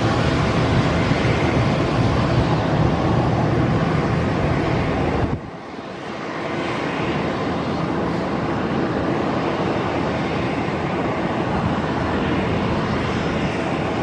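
Boeing 787 Dreamliner airliner on final approach with its landing gear down: a steady jet engine noise. The sound dips suddenly about five seconds in and returns with less of the deep rumble.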